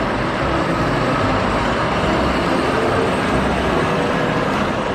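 Water spraying steadily, rinsing the mud off a toy tow truck.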